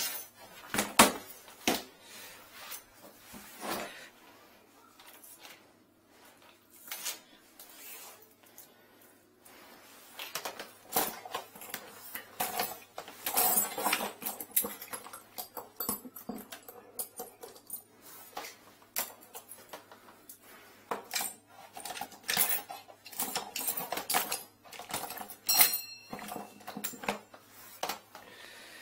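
Metal tools and fittings clinking, clattering and knocking against each other and against an aluminium tool case as it is rummaged through. A sharp knock comes about a second in, a steadier run of clatter follows from about a third of the way in, and a short metallic ring comes near the end.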